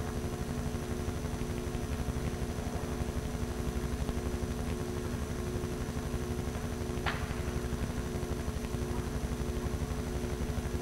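Steady low hum and rumble, the running noise of an old camcorder's motor and tape. A brief faint squeak falls in pitch about seven seconds in.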